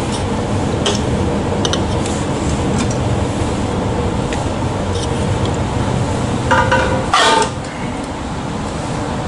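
Inside an NS ICMm (Koploper) electric multiple unit running at speed: a steady rumble of wheels and running gear, with small clinks and rattles from the carriage interior. A short, louder pitched sound comes about seven seconds in.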